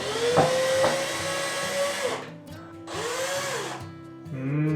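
Cordless drill-driver backing out screws. Its motor spins up and runs for about two seconds, then runs again in a shorter rise-and-fall burst about three seconds in.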